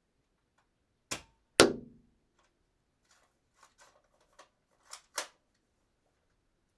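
Dart gun shooting and being cocked: a click, then a sharp shot with a short ringing decay, followed by a run of small mechanical clicks and two sharper clacks close together.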